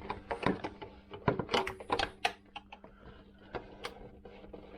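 Irregular clicks and light knocks of a Vespa PX side panel's catch and clip being worked into place by hand, busiest in the first two seconds and thinning out after.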